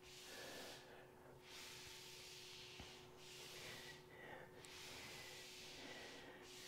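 Faint swishing hiss that comes and goes about four times, each swish a second or so long, from a person doing hamstring slides on her back.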